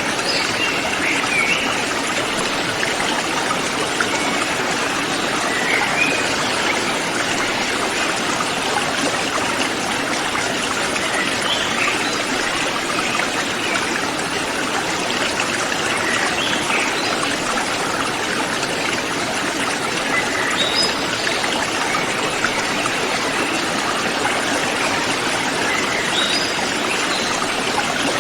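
A mountain river flowing steadily, with a few brief high bird chirps now and then.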